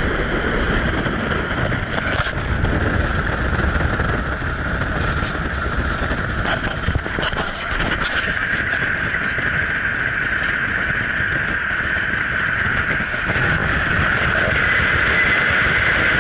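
Motor vehicle running steadily: a constant low rumble with a steady whine over it.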